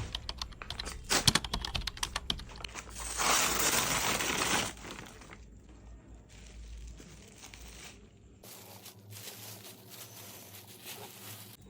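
Parcel packaging being handled and torn open: crinkling and crackling for the first few seconds, then a loud tearing noise for about a second and a half, then quieter rustling.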